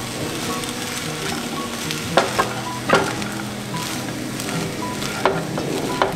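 Spatula stirring and tossing vegetable fried rice in a nonstick wok, with a light sizzle and a few sharp scrapes and knocks of the spatula against the pan, the loudest a little after two seconds and about three seconds in.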